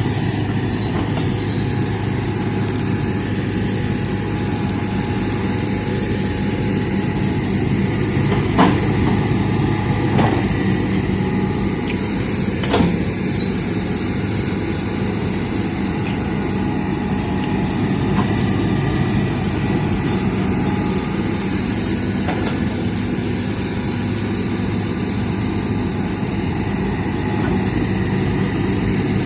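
Hitachi excavator's diesel engine running steadily during land clearing, with a few sharp knocks or cracks about a third of the way in.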